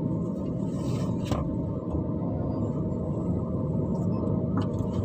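Low, steady rumble of road traffic and an idling car heard from inside the cabin while stopped, with a couple of faint clicks, one about a second in and one near the end.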